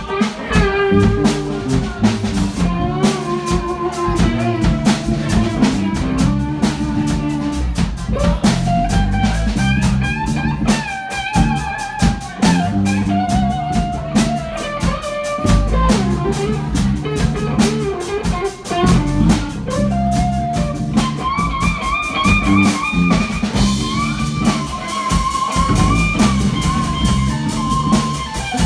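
Live band playing instrumental blues-rock: a lead guitar plays a wavering melody with vibrato over a drum kit and a stepping bass line.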